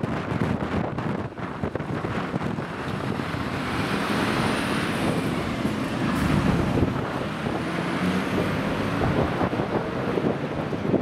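Diesel engine of an Iveco Magirus fire engine pulling away and driving past, loudest as it goes by about six seconds in, with wind rumbling on the microphone.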